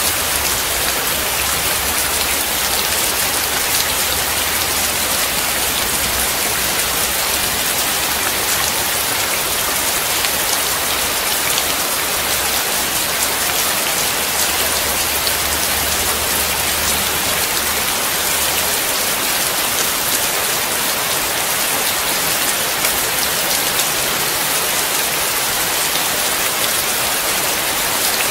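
Steady rain falling on a wet, hard surface: a dense, even hiss of drops. A low rumble runs underneath and stops about two-thirds of the way through.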